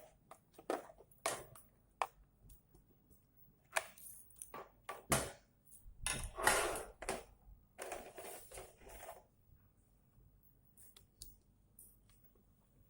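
Scattered sharp clicks and taps with a few brief scraping, rustling stretches, the sound of small tools and parts being handled on a workbench. It is busiest in the middle and thins to a few faint ticks near the end.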